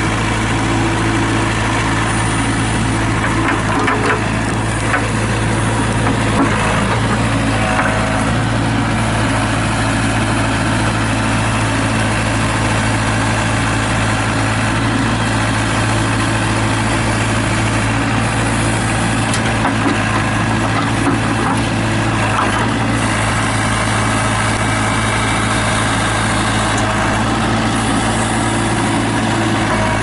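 JCB 210S Series II backhoe loader's four-cylinder Perkins diesel running steadily while the backhoe digs, with a few faint knocks at times.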